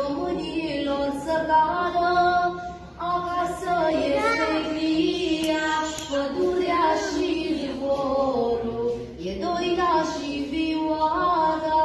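A woman singing a Romanian patriotic song solo, in drawn-out melodic phrases with short breaths between them.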